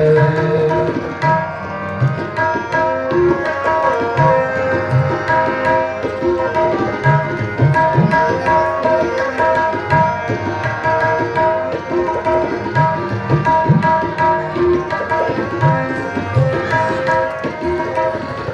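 Instrumental Indian music: tabla playing a steady rhythm under held melody notes, with no singing.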